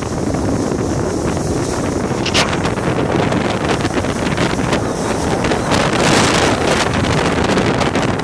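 Wind buffeting the microphone of a skier running downhill at speed, with the skis hissing and scraping over the snow; brighter scraping about two seconds in and again around six seconds in.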